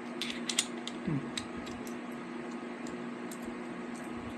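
Light clicks and taps of small accessory parts and packaging being handled. There is a cluster of them in the first second and a half, then a few scattered ones, over a steady low hum.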